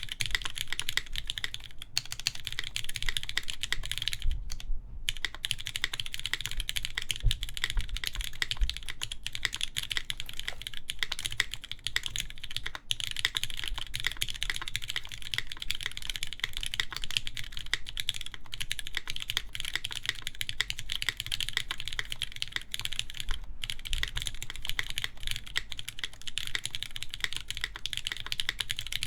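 Steady fast typing on a Keycult No. 2 mechanical keyboard: lubed Cherry MX Black linear switches with 80 g springs in an aluminium plate, under GMK keycaps. A dense run of key clicks, with a brief pause about four and a half seconds in.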